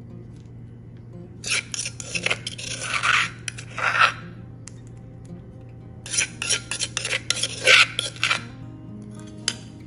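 Metal spoon scraping and clinking against the inside of a terracotta mortar as chili paste is scooped around it, in two bouts of quick scrapes.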